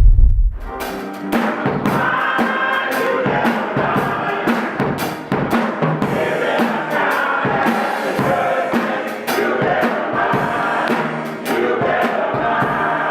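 Music: singing voices over drums with a steady beat.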